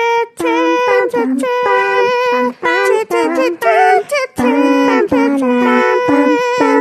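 Anime-style phone ringtone: a high female voice singing a melody in short held notes with brief gaps, with little or no accompaniment.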